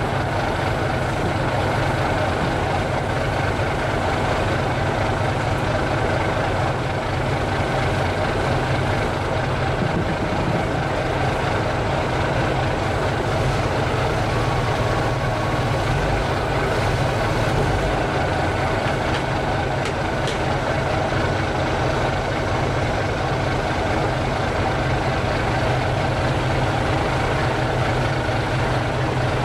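A large engine running steadily, a constant drone with no change in speed.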